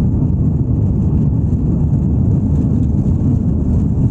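Airbus A330-300 on its takeoff roll, heard inside the cabin: a loud, steady low rumble of the jet engines and wheels on the runway.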